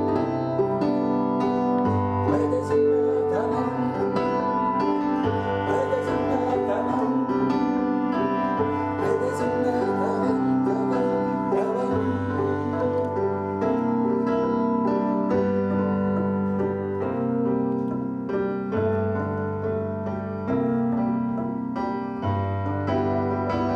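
Background music led by piano, with held chords over a bass note that changes every couple of seconds.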